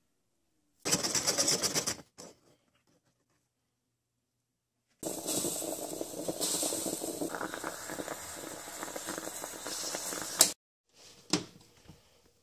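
Stovetop moka pot gurgling and sputtering on the burner as the espresso comes up into the top chamber: a continuous, uneven hissing gurgle that starts abruptly about five seconds in and cuts off about five seconds later. A shorter, rapidly pulsing noise comes about a second in.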